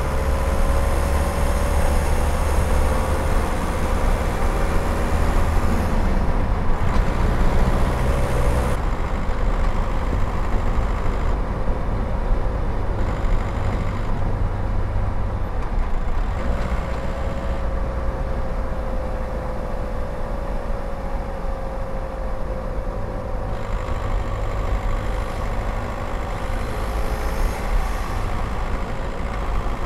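Skoda Octavia 1.9 TDI's four-cylinder turbodiesel engine running while the car drives along, mixed with steady tyre and road noise. It is picked up from outside the driver's window. The engine's note drifts slowly lower at times.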